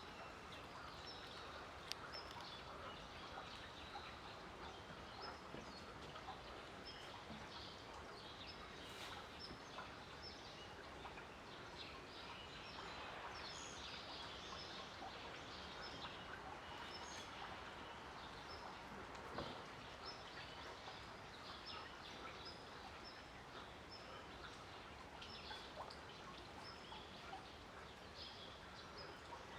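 Small birds chirping in short, repeated calls over a faint, steady outdoor background hiss.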